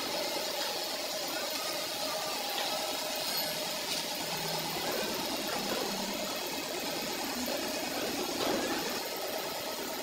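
Steady background hum of an engine or motor running, with no sharp knocks or tool strikes.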